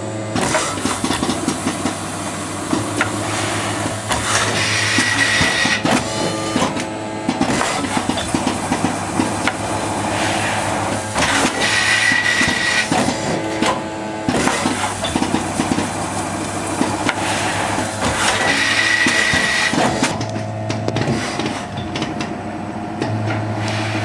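Automated assembly machine running: a steady hum under a stream of clicks and knocks from its moving parts and pneumatic cylinders, with a brief high-pitched sound recurring about every seven seconds as the machine cycles.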